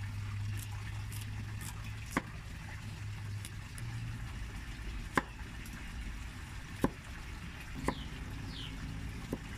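A wide-bladed kitchen knife chopping vegetables on a wooden chopping block: five single sharp knocks of the blade on the wood, spaced unevenly one to three seconds apart. A low steady hum runs underneath and stops about four seconds in.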